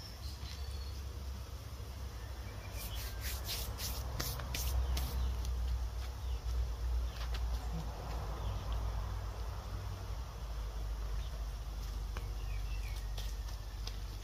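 Dumplings frying in oil in a pan over a charcoal stove, under a steady low rumble, with a run of sharp ticks about three seconds in.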